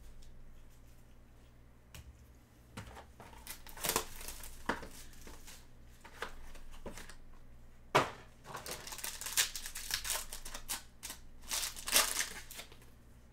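A trading-card box being handled and opened, and the foil wrapper of the card pack inside crinkled and torn open by gloved hands. It comes as irregular crackling and ripping bursts starting a couple of seconds in, with the sharpest rips in the middle and near the end.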